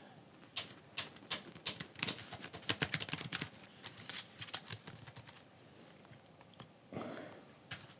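Typing on an Arteck Bluetooth keyboard for the iPad: rapid runs of key clicks for about five seconds, then it stops. A brief soft noise comes near the end.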